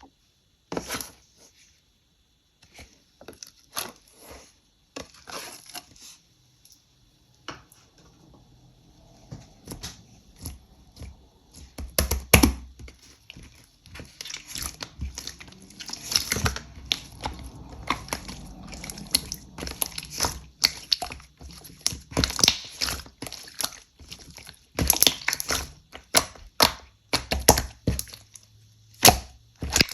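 Pink slime being pressed, stretched and folded by hand, giving irregular sharp pops and crackling clicks. The clicks are sparse at first and come thick and fast in the second half.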